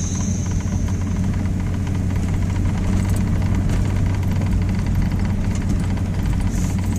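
Car driving over a rough dirt road, heard from inside the cab: a steady low engine and road rumble with fine rattling over the bumps.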